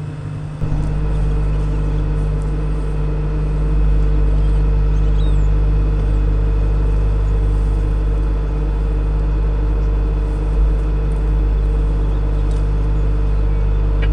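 Self-propelled swather's engine running steadily at idle, with a deep low rumble that comes up just under a second in and then holds.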